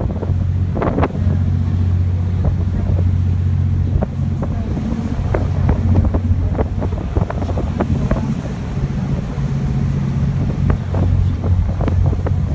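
A ferry's engine running at cruising speed, a steady low drone, with wind buffeting the microphone in irregular gusts and water rushing along the hull.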